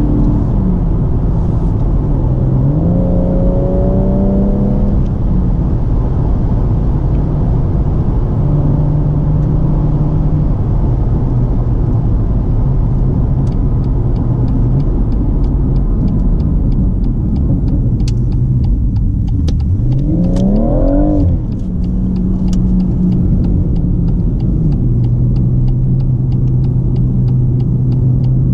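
BMW M140i's turbocharged straight-six with an M Performance exhaust, heard from inside the cabin while driving. The engine note rises and falls with the throttle and gear changes, climbing sharply about 19 seconds in and dropping away near 21 seconds, then settling to a steady pitch.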